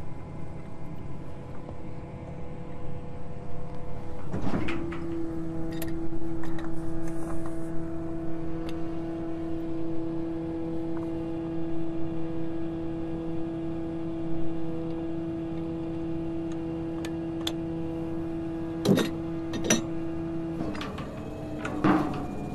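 Pump-hoist truck's engine and hydraulic hoist running at a steady pitch as the deep-well pump and pipe are raised, with a few sharp metal clanks near the end.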